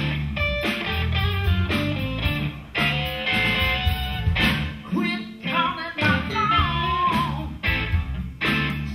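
A live blues band playing a rocking blues: a Stratocaster-style electric guitar plays lead lines over bass and drums.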